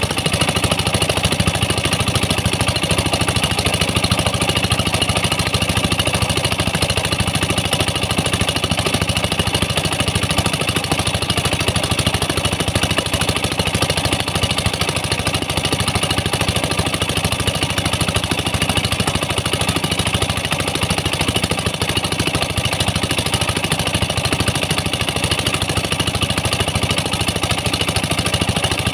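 Engine of the mine's water pump running steadily at constant speed, feeding high-pressure water jets that hiss as they blast the sand walls of the pit.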